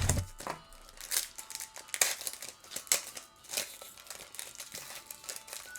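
Trading cards and pack packaging being handled: irregular crinkling with quick card slides and light clicks.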